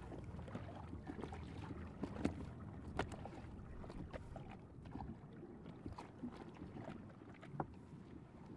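Currach being rowed, heard faintly: water swishing around the boat with a few light knocks from the oars.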